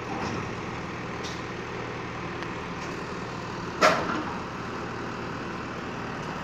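Backhoe loader's engine idling steadily, with one short, sharp loud sound about four seconds in.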